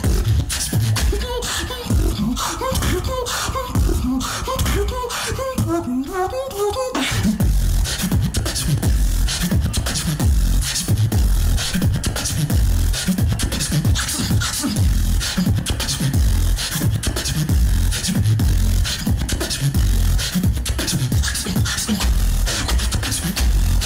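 Live beatboxing into a stage microphone: for about the first seven seconds, gliding pitched vocal sounds over a beat, then a sudden drop into deep bass kicks and sharp snare clicks in a steady rhythm.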